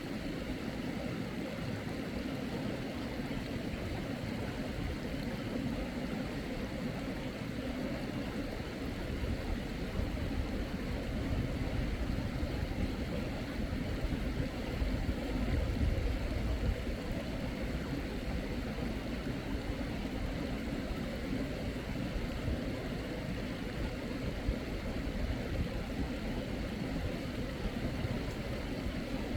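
Steady rushing of a mountain stream's flowing water, with a low rumble that swells a little in the middle.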